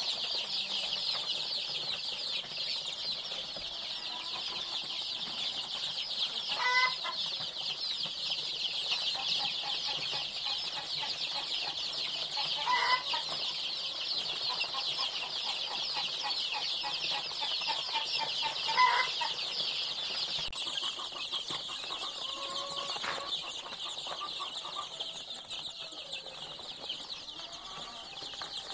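A brooder full of young chicks peeping continuously, many high calls overlapping in a dense chorus. Three louder, lower calls stand out, about six seconds apart.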